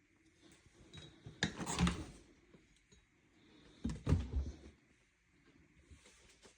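Refrigerator door being opened and handled: two short bursts of door noise, about a second and a half in and again about four seconds in.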